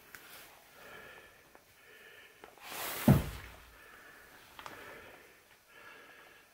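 A man breathing heavily in a small room, with one loud sigh about three seconds in whose voice falls away: an exhausted exhale of relief.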